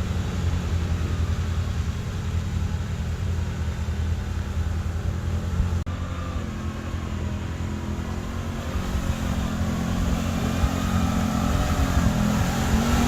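ATV engine running steadily, with a brief break about six seconds in. It grows a little louder near the end.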